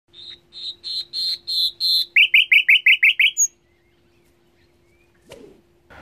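Nightingale singing one phrase: about six loud repeated notes, then a quicker run of about eight sharp falling notes, stopping about three and a half seconds in. A soft click near the end.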